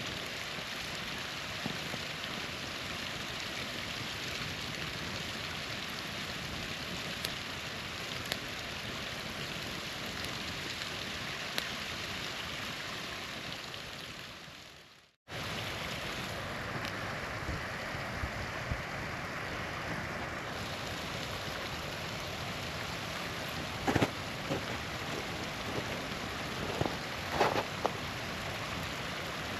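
Small waterfall rushing steadily, with a campfire crackling and popping over it; a few louder pops come near the end. About halfway through, the sound fades out to silence for a moment and then cuts straight back in.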